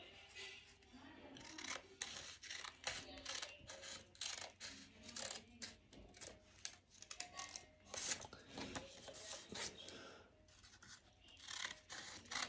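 Scissors cutting through A4 paper, a long run of short, repeated snips as the sheet is cut into strips.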